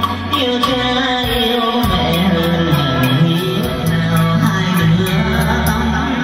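Music with a steady beat and a bass line, with a voice singing over it.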